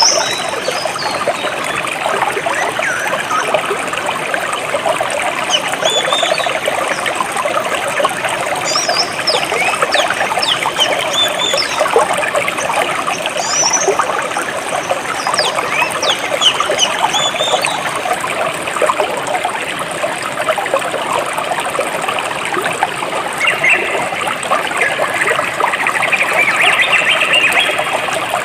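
Small stream of water trickling and splashing steadily, with short high bird chirps now and then.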